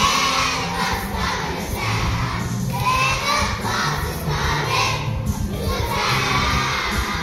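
Children's choir of many young voices singing together loudly, half-shouting the song, over accompaniment with a steady stepping bass line.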